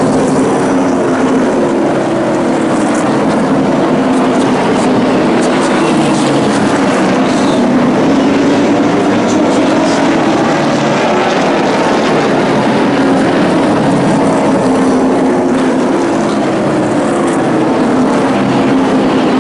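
Several short-track race trucks' engines running hard together as the pack laps the oval, their pitches rising and falling as they accelerate down the straights and lift for the turns.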